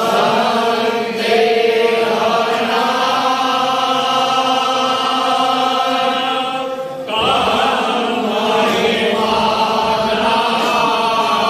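A group of men chanting a devotional mantra to Shiva in unison, in long drawn-out lines; the chant breaks briefly about seven seconds in and a new line begins.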